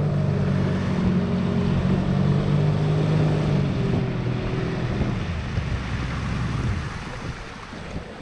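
Yamaha 25 hp outboard motor running steadily as the boat travels, with wind and water noise. The engine note winds down about five seconds in and cuts out around seven seconds in.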